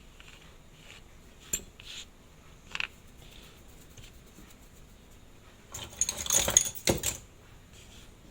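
Small metal watchmaker's tools and parts clicking on the bench: a few light taps, then a little over a second of busy metallic clinking and rattling in the second half, the loudest part.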